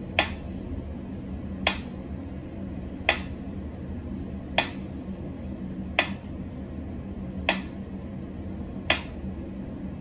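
Mechanical pyramid metronome ticking slowly and evenly, a sharp click about every one and a half seconds, seven ticks in all.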